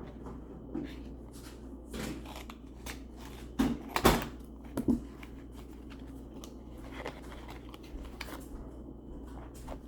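Hands handling a small fidget toy: scattered short rustles and clicks, with a louder cluster of knocks about four seconds in.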